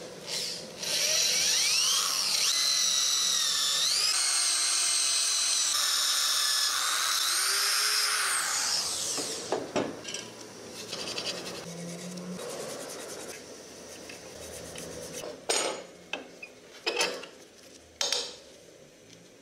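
A handheld power grinder works the slot of a steel folding-shovel hinge bracket held in a vise, with a high whine that rises and falls in pitch as it bears on the metal. The whine stops about nine seconds in. It is followed by a few short, sharp scraping sounds on the steel.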